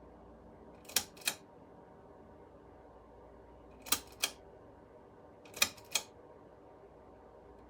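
Three pairs of sharp mechanical clicks, the two clicks of each pair about a third of a second apart and the pairs a few seconds apart, over faint room tone.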